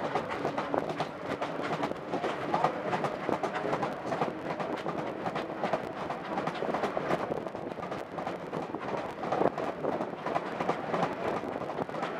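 A small steam train running, heard from an open passenger carriage: steady rolling noise with a busy, irregular clatter of wheels and carriages on the track.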